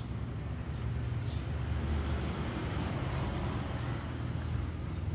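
Steady low rumble of road traffic, swelling as a vehicle passes about two to three seconds in.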